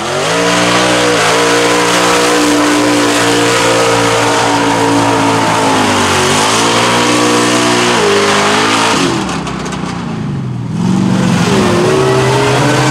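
Lifted mud trucks' engines running at high revs as they dig through mud, the pitch holding steady with brief dips when the revs drop. About nine seconds in the engine sound falls away to a quieter rushing noise, then another engine revs up again.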